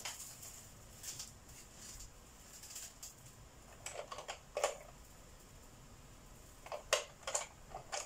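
Wooden coloured pencils clicking and clattering lightly against each other and the desk as they are handled and one is picked out. The clicks come in two small clusters, about four seconds in and again near the end, over faint soft rustling.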